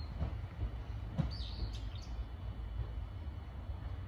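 A small bird chirps a few times, about a second and a half in, over a steady low rumble.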